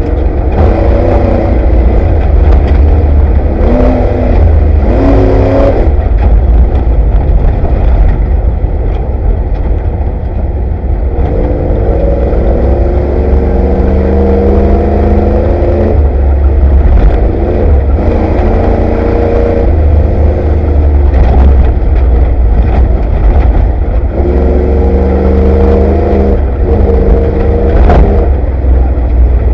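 Ford Bronco off-road race truck heard from inside the cab, its engine revving up and dropping back again and again, the pitch climbing for a few seconds before each break. Under it is a heavy, steady low rumble, with short knocks and rattles as the truck runs over rough desert ground.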